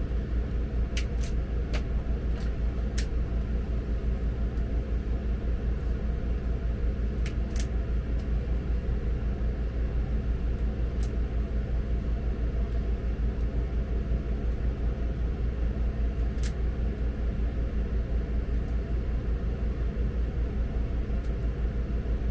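A steady low machine hum with a fast, even pulse runs throughout. Over it come a handful of sharp clicks from a hand wire stripper: several in the first eight seconds and one more past the middle.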